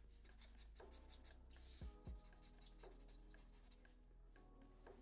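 Faint scratching of a black felt-tip marker on paper in short, quick strokes, with one longer stroke a little under two seconds in.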